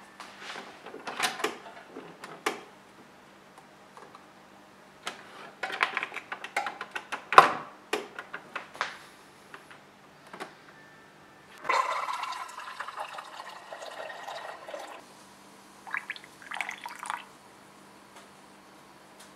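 Keurig single-serve coffee maker being worked by hand: a string of clicks and knocks from the lid and buttons over the first nine seconds. Then hot water runs into the cup for about three seconds, followed by a few short pouring sounds near the end.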